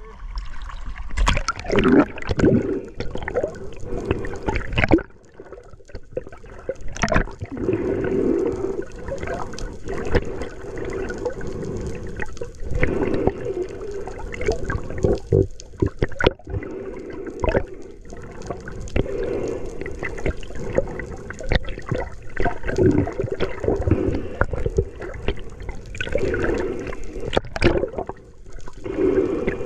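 Seawater sloshing and gurgling, with irregular bubbling and splashes.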